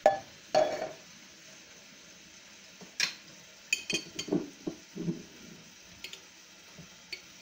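Kitchenware being handled at the stove, knocking and clinking against a pan: a sharp knock at the start, a couple of ringing clinks about four seconds in, then several dull knocks and a few light clicks.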